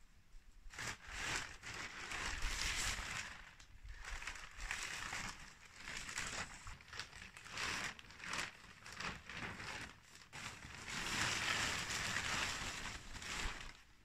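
Thin plastic sheeting crinkling and rustling as it is pulled off a homemade band sawmill, in uneven spells, with a longer loud stretch near the end.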